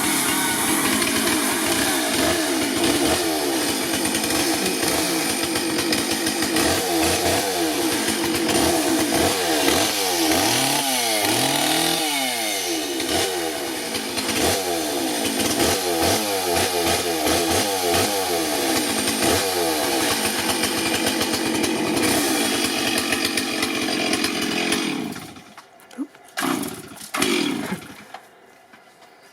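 Chainsaw running and cutting into dead olive wood, its engine pitch rising and falling again and again as it bogs under load and picks back up. About 25 seconds in it drops away, with two short revs near the end.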